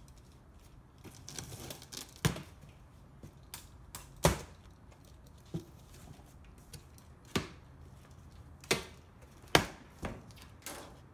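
A cardboard shipping box being cut open with a utility knife, its packing tape slit and its flaps pulled open: scratchy cutting and tearing, broken by about half a dozen sharp cardboard knocks and snaps.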